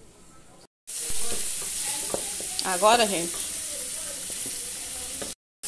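Chopped onion sizzling in hot oil in a metal pan as it browns, stirred with a wooden spoon. The sizzle starts suddenly about a second in, with a brief voice near the middle.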